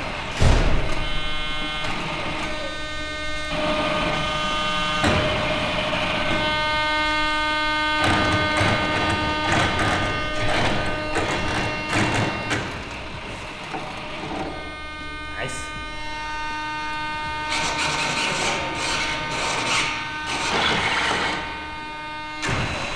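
Servos in a giant RC C-17 model's wings and tail buzzing and whining as the control surfaces are worked from the transmitter. A steady pitched buzz that starts and stops in stretches of a few seconds, with a knock at the very start.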